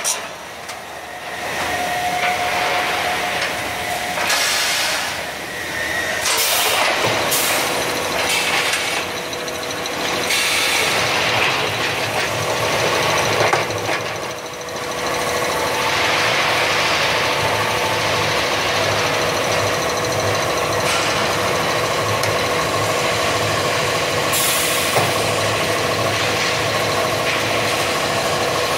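Rebar threading machine running, its threading head spinning on the end of a steel rebar under coolant. A loud machine drone with a steady whine, broken by several hissing surges in the first half, then settling into a constant hum.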